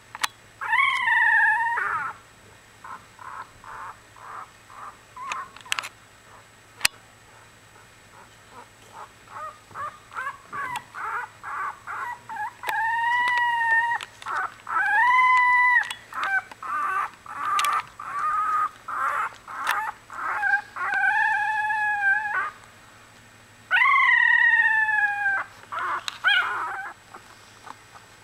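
One-week-old Australian Bulldog puppies squeaking and crying: quick runs of short squeaks, several a second, broken by about five drawn-out wailing cries, some falling in pitch.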